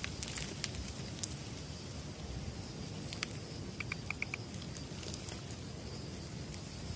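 Outdoor ambience: a steady low rumble with scattered faint ticks, and a quick run of about five short, high chirps a little past the middle.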